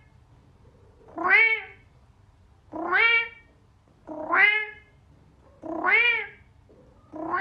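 Cat meowing over and over, about one meow every second and a half: four full meows, with a fifth starting near the end. Each meow rises and then falls in pitch.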